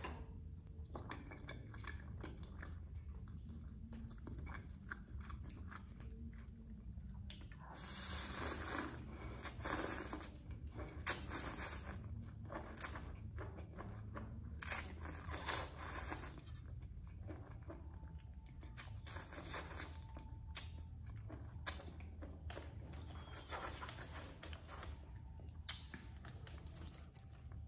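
Close-miked chewing of spicy papaya salad with glass noodles: wet clicks, smacks and light crunches throughout, with two longer loud slurps of noodles, about 8 seconds in and again about 15 seconds in. A low steady hum lies underneath.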